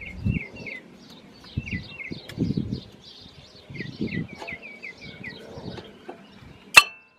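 Birdsong: a songbird repeats quick, short chirps over and over. Under it are soft low bumps and rustles as gloved hands work the spring-wire brake pad spreader clips on the caliper bracket. One sharp metallic click comes near the end and is the loudest sound.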